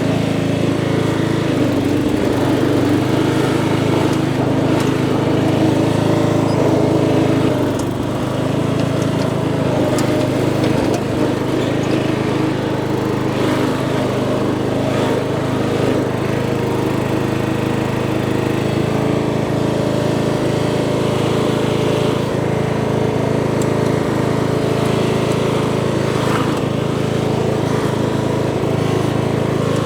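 Riding lawn tractor's small engine running at a steady speed, with a slight dip in loudness about eight seconds in.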